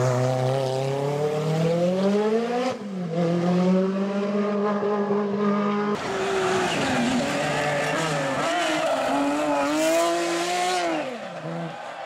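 Rally car engines at full throttle. First a Peugeot 205 T16 rises in pitch, drops sharply a little under three seconds in, then holds steady. From about six seconds in, a Lancia Stratos's V6 revs up and down as the car slides through a hairpin with tyres squealing, then fades near the end.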